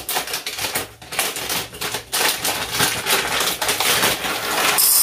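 Dried navy beans poured from a bag into a measuring cup: a rapid rattle of many small hard beans. The rattle thickens about two seconds in.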